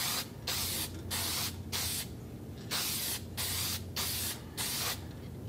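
Aerosol can of white paint spraying in a rapid series of short bursts, about eight passes in five seconds with brief breaks between them, stopping shortly before the end.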